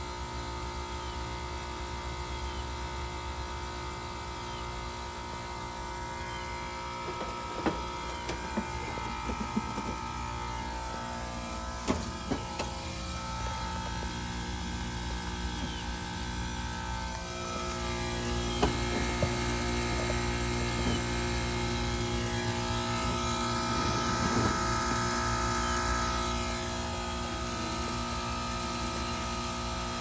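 Carrier 38YCC heat pump outdoor unit running with a steady hum while going through a defrost cycle, its coil iced over after a failed defrost thermostat. A few sharp clicks come between about 7 and 13 seconds in, and the sound grows louder about 18 seconds in, easing slightly after 26 seconds.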